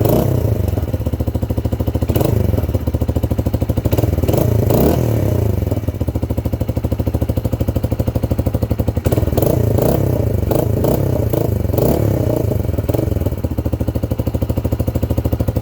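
Motorcycle engine running through a Megaton muffler with a variable DB killer fitted, idling with a steady pulsing beat and blipped several times. The pitch rises and falls about 2 s in, around 4 to 5 s, and in a cluster of blips from about 9 to 13 s.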